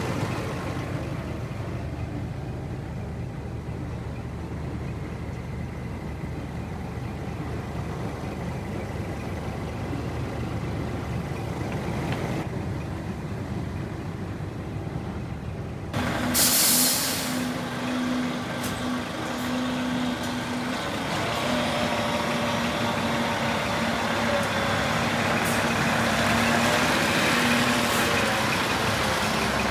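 Scania R480 tipper truck's diesel engine idling, heard muffled from inside the cab. About halfway through comes a sudden loud hiss of released compressed air lasting about a second, after which the engine is heard idling from outside the truck with a steady hum.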